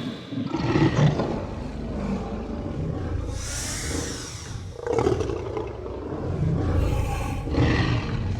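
Dinosaur roar sound effect: low rumbling growls, broken by a shrill screeching roar about three seconds in and a shorter screech near the end.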